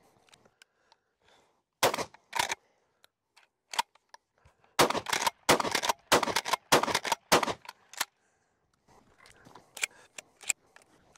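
12-gauge Rock Island All Gen 12 pump-action shotgun racked with two sharp clacks, then fired in a quick string of loud shots with the pump worked between them. Near the end, shells are clicked into the magazine tube.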